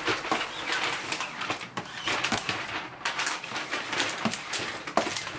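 Adhesive vinyl film being smoothed onto a kitchen worktop with a squeegee, making a rapid, irregular series of small crackles and clicks as trapped air bubbles are pushed out from under the film.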